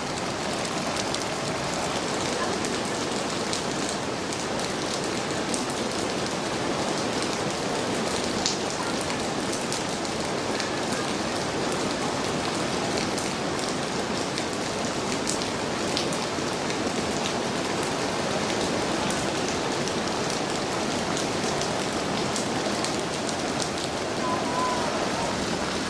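Steady hiss of heavy rain mixed with the rush of a flooded, swollen stream, with scattered sharp drop ticks.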